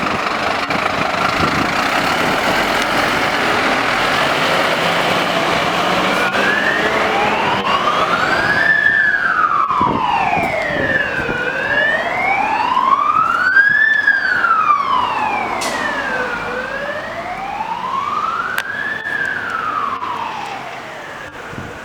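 Fire engine's siren sounding a slow wail, rising and falling about every five seconds, after a stretch of loud engine and road noise in the first six seconds or so.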